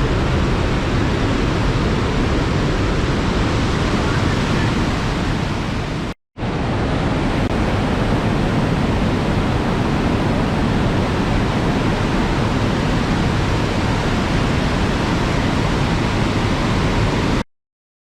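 Loud, steady rushing of a large waterfall crashing into a narrow rock canyon. It drops out for a moment about six seconds in and stops abruptly near the end.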